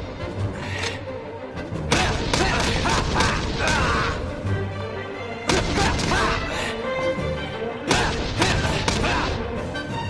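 Action soundtrack music with a pulsing bass line, overlaid by heavy fight hit sound effects; the loudest impacts land about two, five and a half and eight seconds in.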